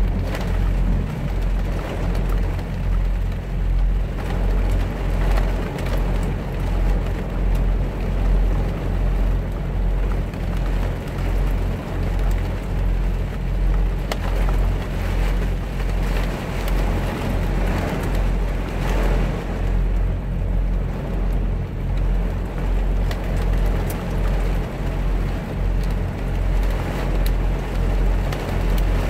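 A semi-truck's diesel engine idling, a steady low hum heard inside the cab, with rain falling on the cab and windshield.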